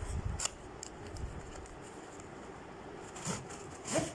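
Handling of a cardboard tripod box as its end is opened and the tripod in a black pouch is slid out: cardboard and fabric rubbing and scraping, with a few sharp scrapes, the loudest near the end.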